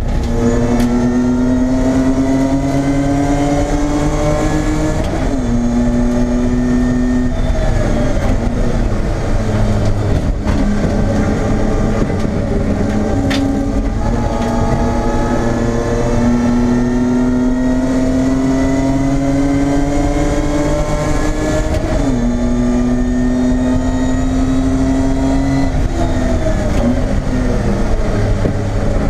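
BMW E30 race car's engine heard from inside the stripped cabin at full race pace: the revs climb slowly, drop sharply at a gear change, hold for a couple of seconds, then fall away, and the cycle repeats. A single sharp click is heard about halfway through.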